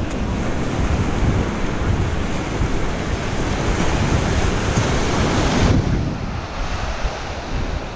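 Ocean surf washing onto the beach, with wind buffeting the microphone in a heavy low flutter. About two-thirds of the way through, the upper hiss drops off abruptly and the sound turns duller.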